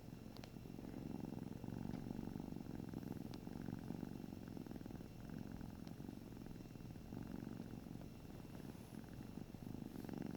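Domestic cat purring steadily up close, the purr swelling and easing every couple of seconds.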